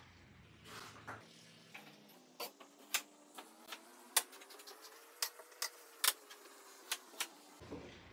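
Kitchen knife chopping apple slices on a wooden cutting board: irregular sharp taps of the blade hitting the board, about two a second, starting a couple of seconds in.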